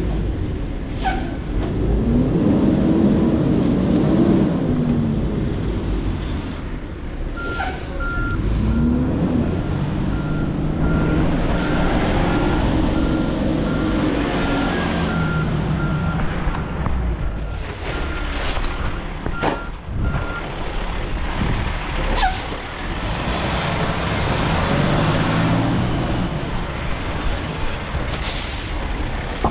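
Garbage truck engine running and repeatedly revving up and down. Its reversing beeper sounds steadily for about thirteen seconds, starting about a quarter of the way in. Sharp hisses and clanks come at intervals throughout.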